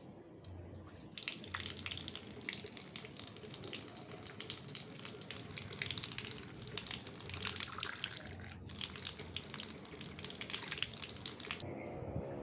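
Water running from an outdoor tap in a free-falling stream. It starts about a second in, breaks off for a moment past the middle, and stops shortly before the end.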